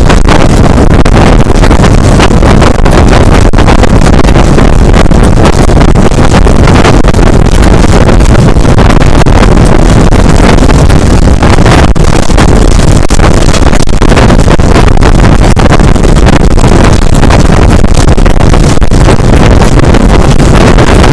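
Rushing wind buffeting a camera microphone held out of the window of a passenger train running at speed, over the train's running noise. The sound is very loud and steady throughout, with constant flutter.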